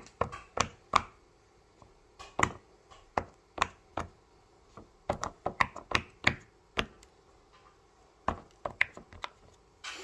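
Silicone pop-it fidget toy: its bubbles popping one after another under a fingertip, an irregular run of sharp little pops with a couple of brief pauses.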